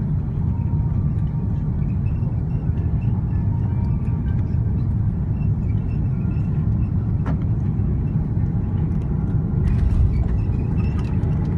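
Cabin noise of an Airbus A330-300 landing: a steady low rumble of engines and airflow. About ten seconds in, the wheels meet the runway with a burst of rattles and knocks, and the rumble grows a little louder.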